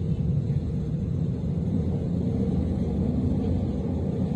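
Steady low rumble of an S-Bahn commuter train running at speed, heard from inside the carriage.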